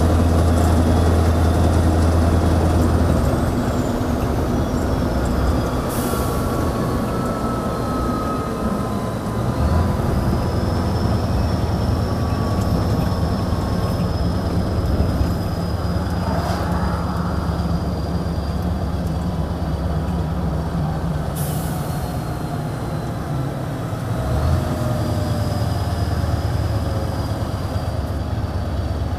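Scania R620 V8 truck engine running through loud exhaust pipes, easing off a few seconds in and pulling again, with a high whistle that rises and falls with the load. Two short sharp hisses of air are heard, about six seconds in and again near 21 seconds.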